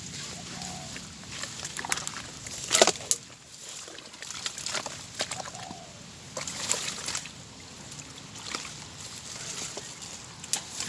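Water and mud sloshing and splashing in irregular bursts as someone works by hand in a tidal crab hole, with a sharp splash about three seconds in.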